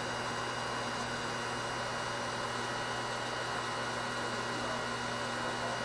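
Steady electrical hum with hiss, holding a few constant tones and changing nothing throughout; no other sound stands out.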